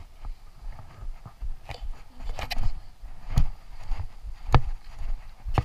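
Footsteps walking briskly on a dirt trail covered in dry leaves, about one thud a second, with leaves rustling between steps.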